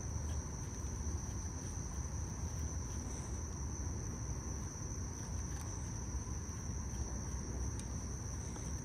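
Steady high-pitched drone of insects calling from the lakeshore vegetation, over a low background rumble.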